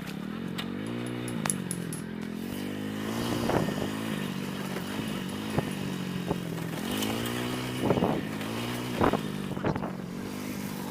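Scooter engine running while ridden on a rough, unfinished road, its pitch rising and falling twice. Several sharp knocks and rattles come from bumps, most of them a few seconds in and near the end.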